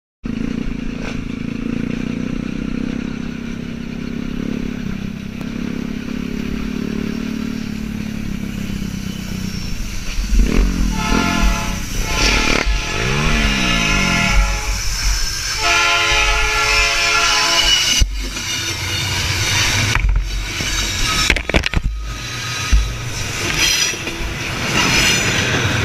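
Dirt bike engine running steadily along the rails beside a freight train. A train horn sounds in long blasts from about ten to eighteen seconds in, with the pitch rising and falling partway through. After that come several sharp knocks as the bike goes down.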